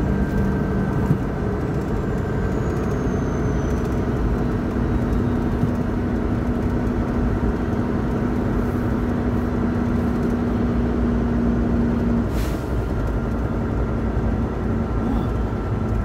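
Semi truck's diesel engine running at low speed with road noise, heard from inside the cab; a steady hum drops out about twelve seconds in, followed by a short hiss.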